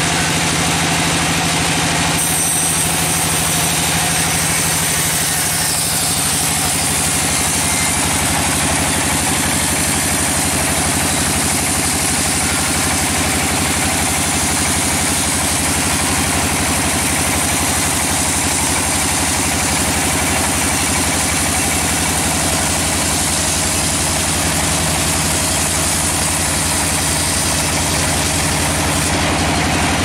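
Band sawmill running steadily, its blade cutting lengthwise through a red-timber log: a high hiss of the cut starts about two seconds in and stops shortly before the end, over the machine's constant hum.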